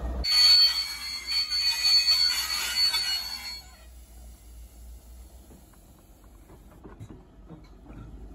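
Slow-moving train of a brake van and diesel shunter giving a high, steady squeal with grinding noise for about three and a half seconds, then stopping. After that, a quieter low rumble remains with faint clicks.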